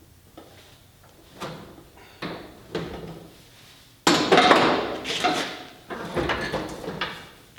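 A few separate knocks, then about four seconds in a loud stretch of clattering and scraping that lasts about three seconds, from hand work on the truck.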